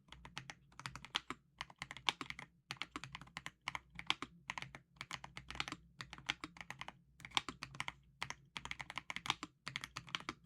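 Typing test on a stock Redragon Wyvern LCD Pro mechanical keyboard: rapid runs of key clacks in short bursts with brief pauses between them.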